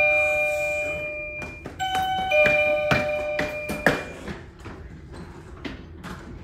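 Two-note doorbell chime: a ding-dong dies away, then rings again about two seconds in. Quick footsteps on a hard floor follow.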